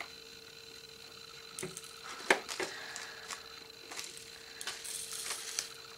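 Scattered light clicks and rattles of small plastic diamond-painting drills and plastic storage pots being handled, with one sharper click a little past two seconds in.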